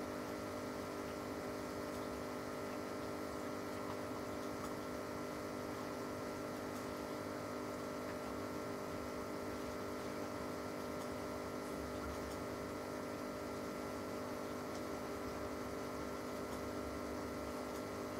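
Steady electrical hum of aquarium equipment, such as the air pump feeding the bubble curtains, with a faint even hiss over it.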